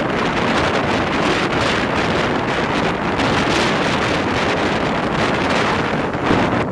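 Steady wind rushing over the microphone held out of the window of a moving diesel passenger train, with the train's running noise underneath.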